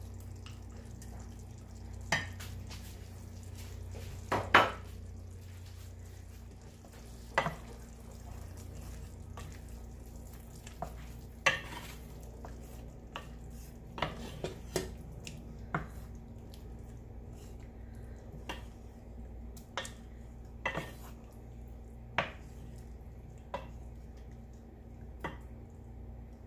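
Wooden spoon stirring a sauce in a stainless steel skillet, with irregular sharp knocks and taps against the pan over a low steady hum.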